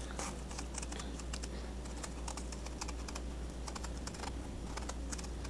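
Kitchen knife peeling the skin off a large, firm hard-fleshed peach (ttakbok): a run of quick, irregular crisp clicks and scrapes as the blade cuts through the skin.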